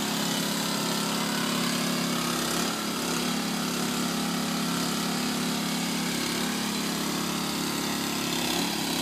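Small engine running steadily, driving the hydraulic ram that pulls a new sewer pipe through the old line in trenchless replacement.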